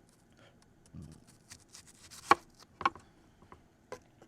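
Knife cutting through extra-firm tofu and knocking on a cutting board: a few sharp, irregular knocks, the loudest a little over two seconds in.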